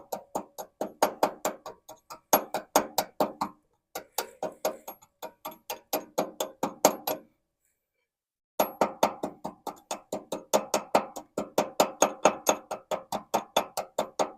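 Rapid hammer taps on a fresh weld on cast iron, each stroke ringing, about four or five a second, with a pause of about a second in the middle before the tapping resumes.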